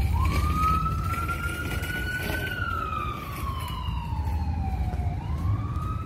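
Emergency vehicle siren wailing: the pitch sweeps up quickly, climbs slowly to a peak, falls slowly, and sweeps up again near the end, over a low steady rumble.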